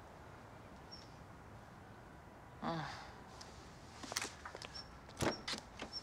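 Footsteps and sharp clicks and knocks of a car door being unlatched and swung open, the loudest knock about five seconds in, with faint outdoor background before it.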